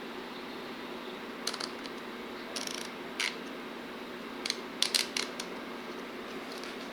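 A series of short, sharp mechanical clicks and small rattles from something small being handled, coming in irregular bunches with the busiest cluster a little past the middle, over a steady low hum.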